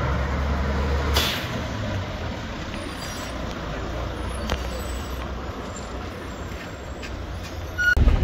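Isuzu tow truck's diesel engine running with a heavy low rumble, and a brief sharp hiss of air about a second in. The engine then runs on more steadily with street noise.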